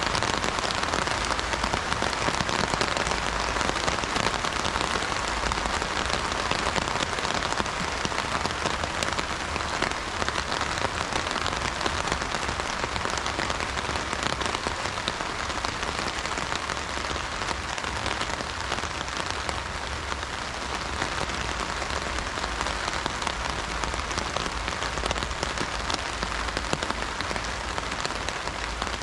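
Heavy rain falling on an umbrella, a steady, dense patter of drops with no let-up.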